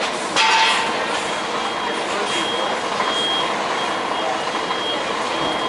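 British pedestrian crossing signal beeping: a high-pitched beep repeating on and off from about a second and a half in, the signal that pedestrians may cross, over steady road-traffic noise. A brief loud burst of sound about half a second in.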